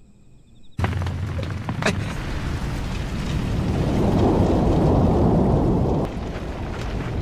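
Sound effect of a large fire burning a building: a steady rush of flames with occasional crackles. It starts suddenly about a second in, grows louder in the middle and eases slightly near the end.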